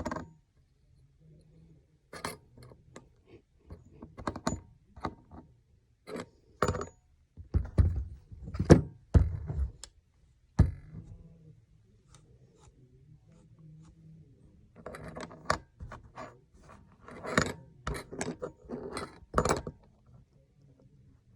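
Irregular clicks, knocks and scrapes of a leather-stitching awl being handled with metal prosthetic hooks. The knocks come in two busy spells, and the loudest are around a third of the way in.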